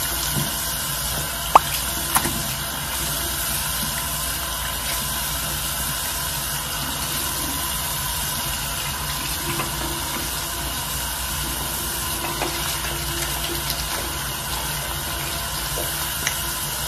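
Shower water running in a steady, even spray. Two sharp clicks sound about a second and a half in and again shortly after.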